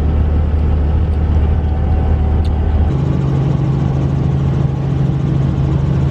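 Helicopter noise heard from inside the cabin: a steady low drone that switches to a higher-pitched steady hum about three seconds in.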